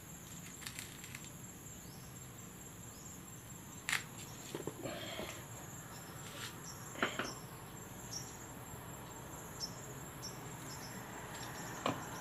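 Light handling of an electric stand-fan motor as it is wiped and fitted back onto its stand: a few short clicks and knocks, the sharpest about four seconds in and again around seven seconds. Under them, a steady high insect trill.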